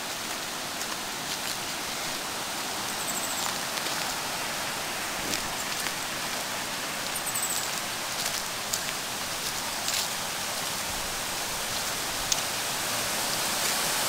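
Steady rushing of river water running over rocky rapids, growing gradually louder toward the end.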